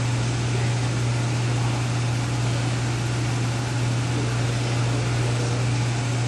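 Steady low hum with an even rush of air from a room's air-conditioning system, unchanging throughout.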